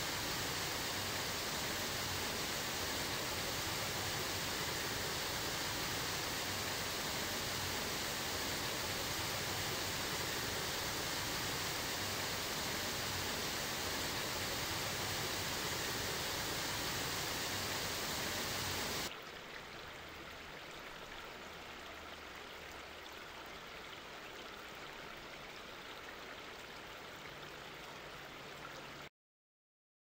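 Water of a small waterfall cascading over boulders into a pool, a steady rushing. About two-thirds of the way through it cuts to a quieter, duller flow of water, which stops abruptly to silence just before the end.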